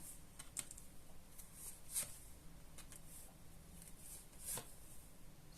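Quiet room tone with a few faint, scattered soft clicks and rustles.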